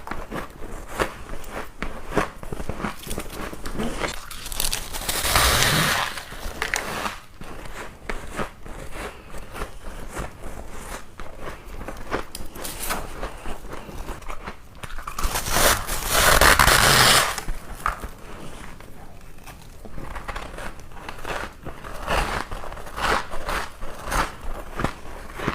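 Close-miked crunching of freezer frost ice being bitten and chewed, a dense run of irregular crackles, with two louder, longer noisy stretches about five and fifteen seconds in.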